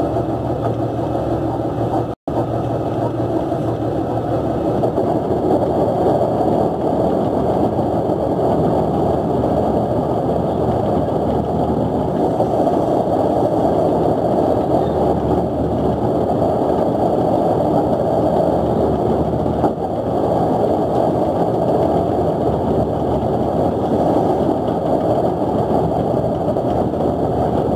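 Fishing boat's engine running steadily on deck while the net is hauled in, cutting out for an instant about two seconds in.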